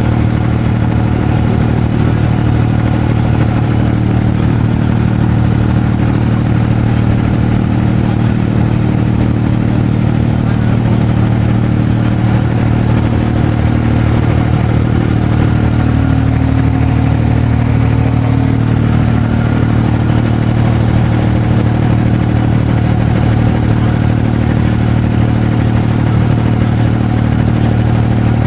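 Boat engine running steadily, heard from on board: a loud, constant drone with a strong low hum that does not change.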